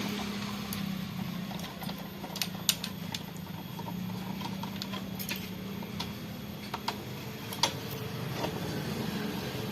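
Scattered light metallic clicks and taps of hand tools working at the valve rocker adjusters of a diesel engine during valve clearance setting, over a steady low hum.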